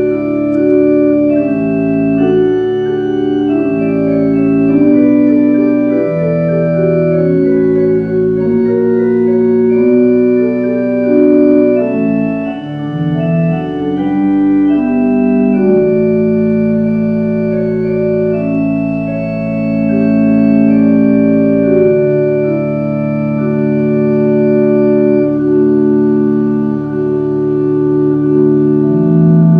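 Organ playing slow, sustained chords that change every second or two, with a brief busier passage of moving notes around the middle.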